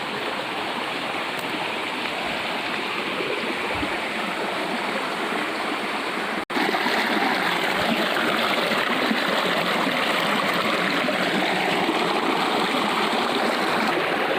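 Waterfall and its stream rushing steadily. The sound cuts out for an instant about six and a half seconds in, then carries on slightly louder.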